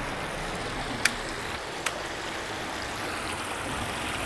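Steady rush of water flowing through a concrete culvert between two ponds, with two sharp clicks, one about a second in and another just under a second later.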